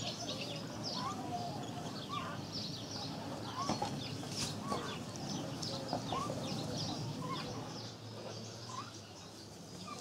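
Barn swallows calling at the nest: a continuous run of short, high chirps, with lower short rising calls repeated about once a second underneath.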